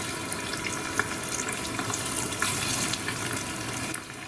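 Karaage chicken pieces deep-frying in hot oil in a small pot, a steady dense sizzle and bubbling with scattered crackles: the first fry of a double fry, at about 160 °C.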